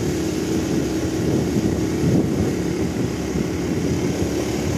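Motorcycle running steadily on the move, with wind on the microphone. The low bass of distant carnival sound systems carries from behind a hill.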